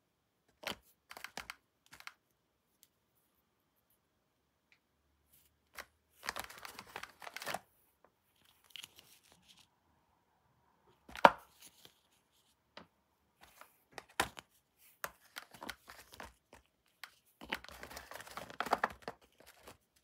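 Krakuski heart-shaped cookies and their clear plastic tray being handled: scattered clicks and taps as the cookies are picked up and knocked together, with two longer stretches of crackling plastic and scraping, and one sharper click about halfway through.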